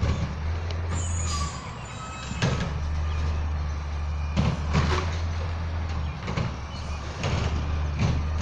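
Garbage truck's diesel engine running steadily down the street as a low hum, with a brief high squeal about a second in and several sharp knocks.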